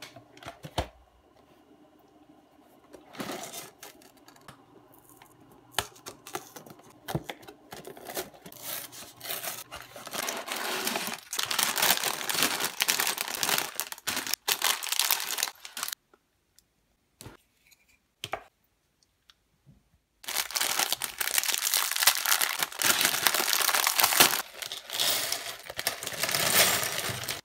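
Thin plastic parts bags crinkling and rustling as they are handled and torn open. Small hard plastic Lego Technic pieces rattle out onto the table. A few scattered clicks come first, then long stretches of dense rustling with a short quiet break in the middle.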